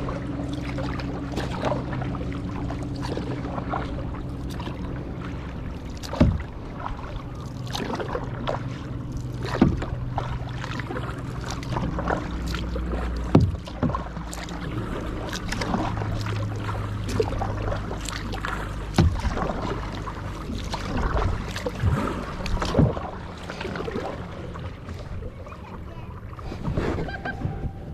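Kayak paddling on calm water: paddle splashes and knocks every few seconds over a steady low hum.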